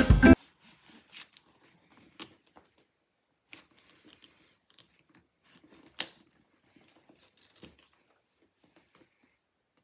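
A leather handbag being handled and turned over on a cloth dust bag: faint rustling and light scattered clicks, the sharpest click about six seconds in. Background music cuts off just after the start.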